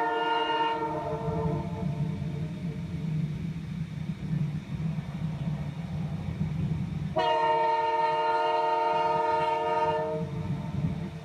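Train horn sounding a multi-note chord that trails off about a second in, over the steady low rumble of the train. A second horn blast starts about seven seconds in, holds for nearly three seconds and cuts off abruptly.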